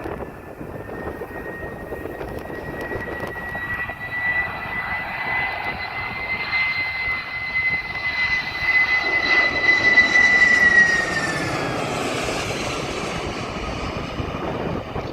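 Airliner's engines flying past: a steady whine over a rumble, swelling to its loudest about two-thirds of the way in, then dropping in pitch as the aircraft goes by.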